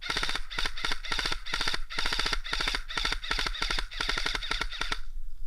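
Airsoft gun firing on full auto in a string of short bursts of rapid clicking shots, which stop about five seconds in.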